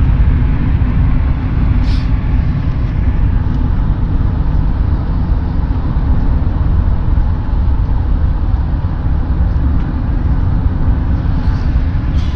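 Steady road and engine noise inside a moving car's cabin at highway speed, mostly a low rumble with an even hiss above it.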